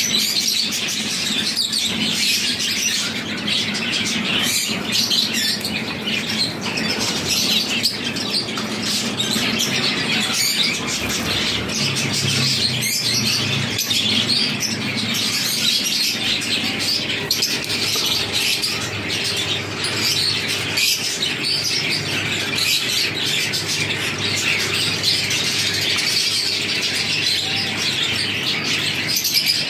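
Many finches chirping and calling at once, a dense, continuous chorus of high chirps.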